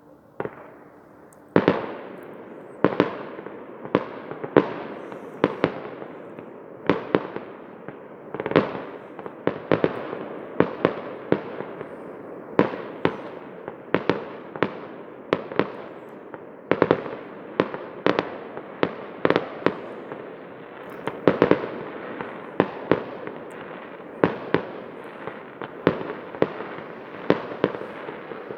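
Fireworks display: aerial shells bursting in a long, steady series of sharp bangs, about one to two a second, starting about a second and a half in, with a continuous rumble between the bangs.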